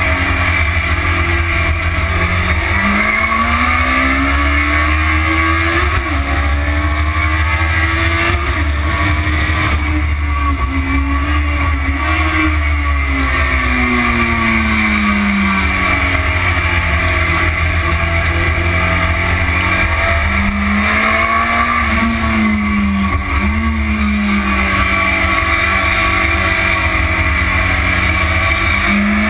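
Motorcycle engine under hard riding on a race track, its pitch rising and falling repeatedly as it revs up and drops back through corners and gear changes. Heavy wind rumble on the microphone runs underneath.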